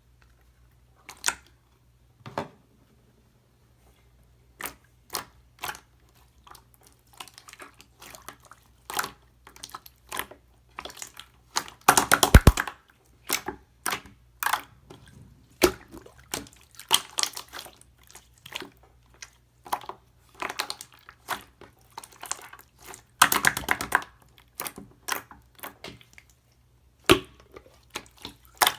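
Slime being pressed and squeezed by hand, giving irregular wet clicks and sticky pops, with two denser runs of crackling pops, one near the middle and one about two-thirds through.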